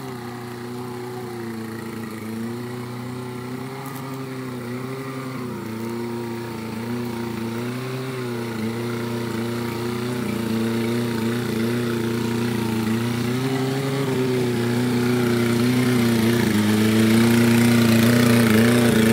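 Off-road vehicle engine running under load, its pitch wavering up and down as the revs rise and fall, and growing steadily louder.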